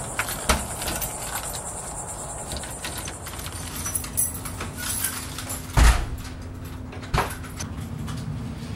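Keys jangling and clicking at a front-door lock as the door is opened, then a loud thump as the door shuts a little before six seconds in, and a lighter knock about a second later.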